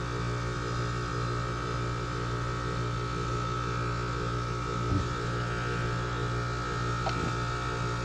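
Rheem heat pump outdoor unit running in heating mode, a steady electrical hum from the compressor and fan, with its indoor blower disconnected so the coil will freeze up for a defrost test. A short handling knock comes about five seconds in and a faint click about two seconds later.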